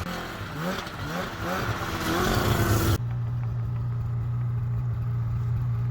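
2016 Polaris snowmobile engine revving up and down in quick rises. About three seconds in, after a sudden cut, it idles steadily.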